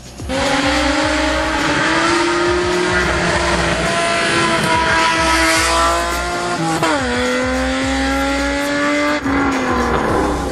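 Hillclimb race car engine under full throttle. The note climbs steadily for several seconds, drops sharply at an upshift about seven seconds in, climbs again, then tails off near the end.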